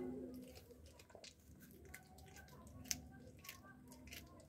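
Cat chewing on a rat: faint, irregular wet crunches and clicks of teeth on flesh and bone, one sharper crunch about three seconds in.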